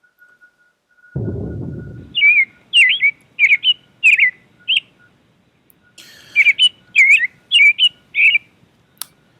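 Recorded birdsong played from the presentation: two phrases of quick, swooping chirps, each about two and a half seconds long with a pause between. A short low rushing noise comes just before the first phrase, and a single click near the end.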